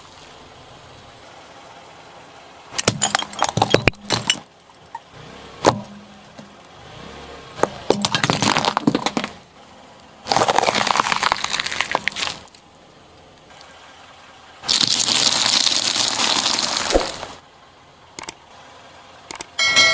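A car tyre crushing bell peppers and other crunchy items on asphalt: five or so separate bursts of crunching and crackling, each a second or two long, with short pauses between them. A bright chime sounds at the very end.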